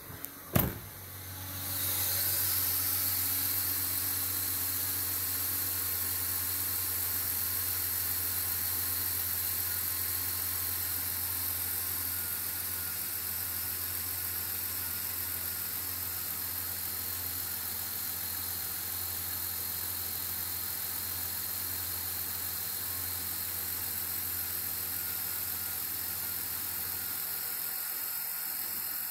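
BMW E39's 2.5-litre straight-six (engine code 256S3, an M52B25) idling steadily. After a sharp knock about half a second in, the engine sound comes up and is a little louder at first, easing to an even idle over the first ten seconds or so.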